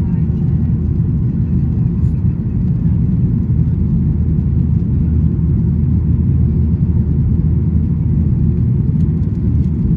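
Cabin noise of a Boeing 737-800 in its climb just after takeoff: a loud, steady low rumble from its CFM56-7B jet engines and the air rushing past the fuselage.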